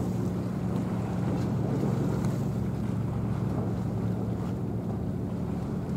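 Steady low drone of a large ship's engines passing offshore, with wind rumbling on the microphone.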